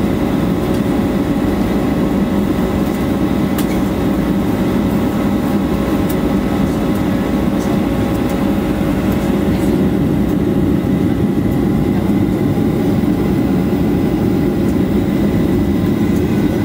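Steady in-flight cabin noise of a Boeing 737-800 on final approach: its CFM56-7B jet engines and the airflow over the fuselage make a heavy low rush with several steady whining tones on top.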